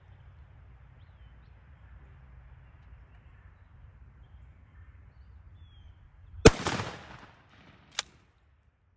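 A single 12-gauge shotgun shot firing a 3-inch lead turkey load, a sharp crack with a short echo trailing off. About a second and a half later comes one sharp click.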